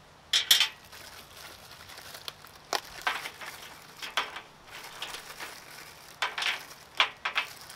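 Small clear plastic parts bag crinkling and rustling in several short bursts as it is handled and opened.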